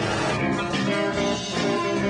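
Live rock band playing, with guitar to the fore.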